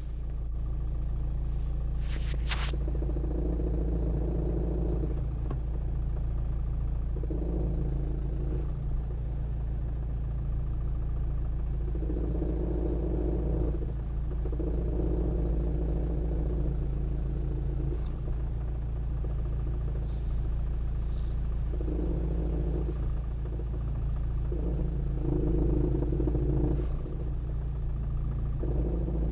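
Renault Megane 3 idling, heard inside the cabin, with a strong knocking rumble that comes in spells of a second or two, several times over, as reverse is attempted. The owner does not know its cause. A few sharp clicks are heard as well.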